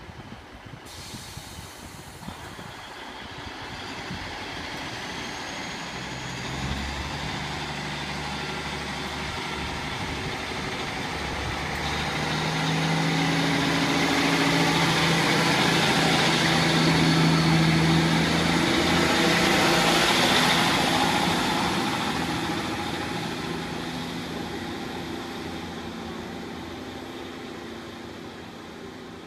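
Sprinter diesel multiple unit pulling away from the platform: its underfloor diesel engines build up as it accelerates past, with a faint high whine rising slowly above them. The sound is loudest about halfway through, then fades as the train draws away.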